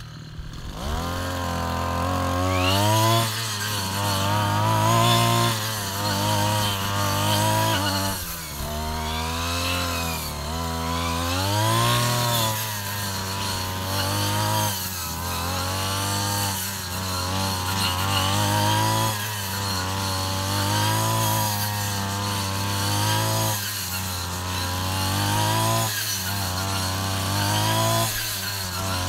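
Backpack brush cutter's small petrol engine revving up from idle about a second in, then its pitch rising and falling again and again as the throttle is worked while cutting grass.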